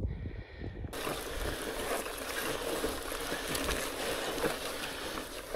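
Fat-bike tyres rolling through wet, boggy ground: a steady wet hiss that starts abruptly about a second in.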